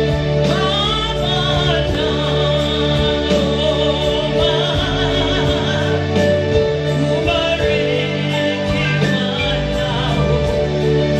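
Gospel music: violins playing with singing over steady sustained low notes.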